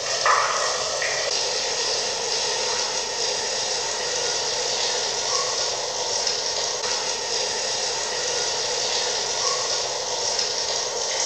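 A steady, even hiss, with a brief louder sound just after the start.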